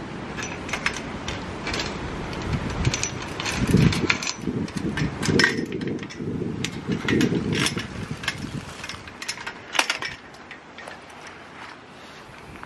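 Footsteps crunching and snapping over storm-fallen twigs and leaves, with wind rumbling on the microphone; the rumble eases after about ten seconds.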